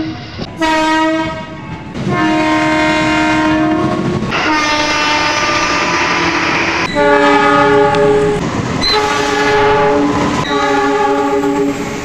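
Electric commuter trains sounding their horns in a run of blasts: a short one, then two longer ones, then three long blasts of a deeper multi-note chord with brief gaps between them. Train wheels rumble and click underneath.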